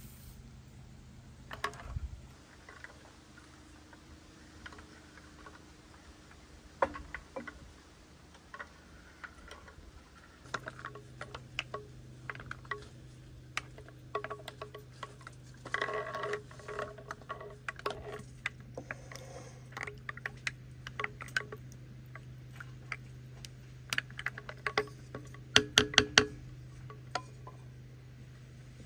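Scattered light clicks, taps and clinks of small hard objects, some ringing briefly, with a quick run of sharp knocks near the end. A steady low hum gets louder about ten seconds in.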